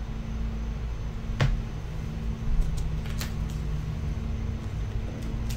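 Steady low room hum with a few light clicks and taps as a trading card is handled and set down on a table.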